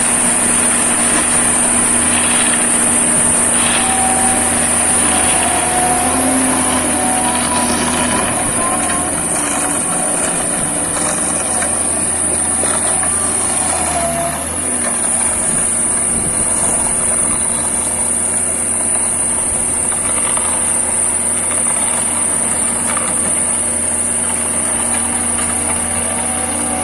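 Self-loading concrete mixer's engine running steadily, with a constant high whine over it.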